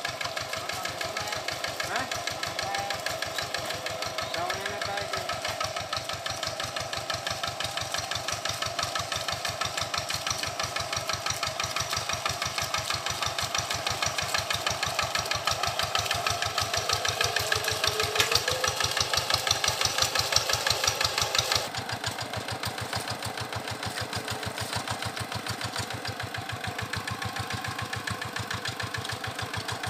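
Quick G1000 two-wheel hand tractor's single-cylinder diesel engine running, a fast steady chugging, as the tractor drives through a flooded rice paddy. It grows louder for a few seconds about two-thirds of the way through, then drops suddenly.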